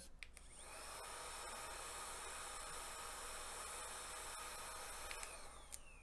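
Air blower blowing dust out of a laptop's USB-C ports: a steady hiss that starts about half a second in and stops near the end, followed by a whine falling in pitch.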